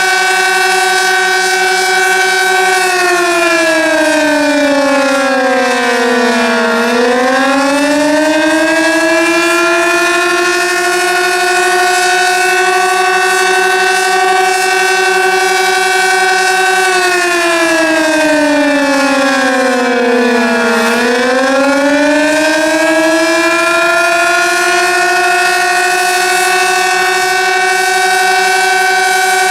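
Sentry 16V1T-B outdoor warning siren sounding the attack signal: a steady wail that twice sags in pitch over about four seconds and climbs back, about 14 seconds apart. The recordist finds this siren lower-pitched than it normally sounds.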